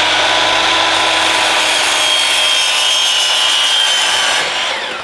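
DeWalt miter saw running at full speed, its blade cutting through a white PVC pipe fitting with a steady whine. Near the end the motor is switched off and winds down, its whine falling in pitch.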